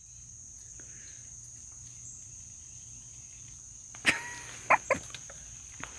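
Crickets chirring steadily in a high, thin tone. About four seconds in comes a short sharp sound, followed by two more quick ones.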